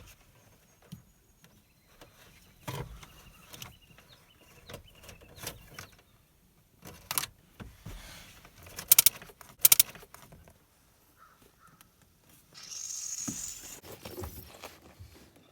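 Hand-work noises: scattered small clicks and sharp snaps, with a quick run of loud clicks about nine seconds in and a short rustle near the end.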